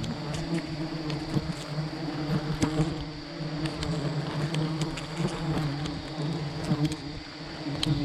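A swarm of honeybees buzzing around a wild hive: a steady, wavering drone with scattered faint clicks.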